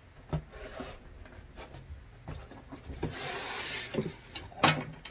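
Styrofoam packing rubbing and knocking as a UV lamp is pulled out of it. There are scattered knocks, a longer scraping rub about three seconds in, and a sharp knock near the end.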